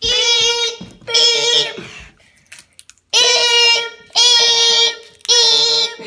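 Fire-alarm evacuation signal in the temporal-three pattern: steady, high-pitched tones sounding three times, a pause of over a second, then three times more.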